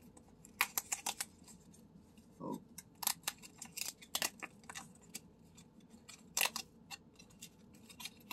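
Card-stock tabs of a pull-tab lottery ticket being peeled open by fingers: irregular short, sharp snaps and crackles of tearing paper, the loudest about six and a half seconds in.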